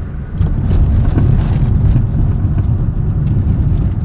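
Car engine and road noise while driving, a steady low rumble that gets louder about half a second in and holds. The car runs on LPG.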